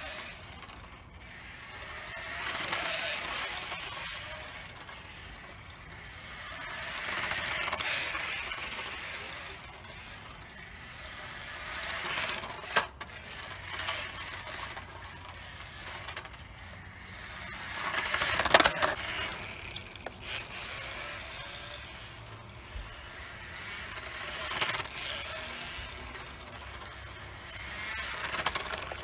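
Electric drive of a small 1/24-scale RC rally car running in repeated passes: a high motor whine rising and falling in pitch with the throttle, with tyre hiss swelling as the car comes near and fading as it goes. A few sharp knocks, the loudest about 18 seconds in.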